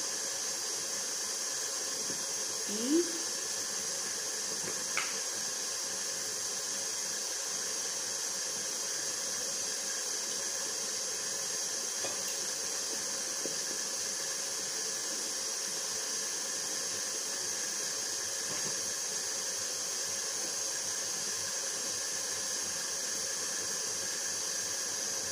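KitchenAid stand mixer running steadily at a medium speed, mixing cake batter, with a steady hissing whir. A short rising squeak stands out about three seconds in.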